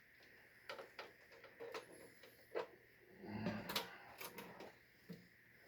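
Scattered plastic clicks and cable rustling as the CPU power cable is handled and pushed into its motherboard socket, with a busier stretch of handling about halfway through.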